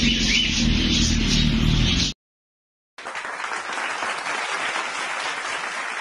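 For about two seconds a low rumble with a single short rising chirp from a caged bird; the sound then cuts off abruptly. After about a second of silence, steady applause begins and continues.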